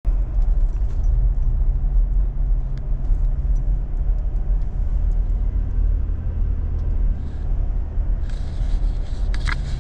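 A vehicle driving along, with a steady low rumble of engine and road noise heard from inside the cabin.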